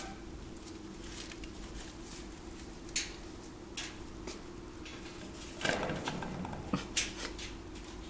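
African grey parrot moving about in its cage among paper and wooden blocks: a few scattered light clicks and a short rustle about six seconds in, over a steady faint hum.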